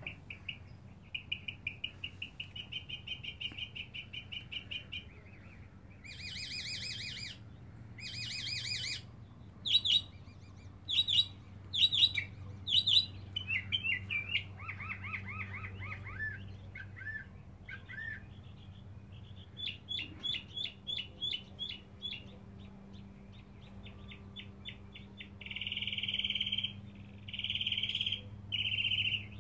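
Northern mockingbird, a male singing a long run of varied phrases, each repeated several times before the next: rapid series of short notes, harsh buzzy calls, sharp clear notes and fast trills. It is the persistent song of a male still without a mate. A faint steady low hum runs underneath.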